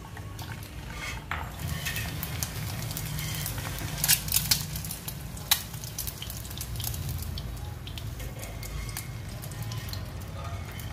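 An egg frying in oil in a small nonstick pan, sizzling with steady fine crackling. A few sharp clicks of a spatula against the pan stand out about four to five and a half seconds in.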